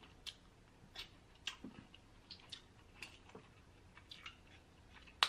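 Faint, scattered clicks and small cracks of snow crab leg shell being snapped and picked apart by hand, about a dozen at uneven intervals, the sharpest near the end.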